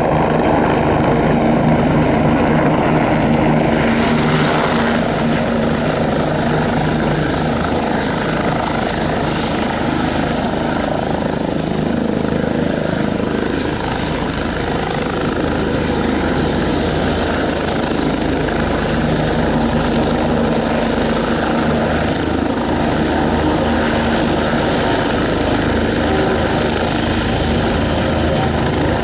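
Bell 429 GlobeRanger helicopter's twin turboshaft engines and four-blade rotor running steadily as it hover-taxis just above the ground: a continuous turbine whine over dense rotor noise. The hiss turns abruptly brighter about four seconds in.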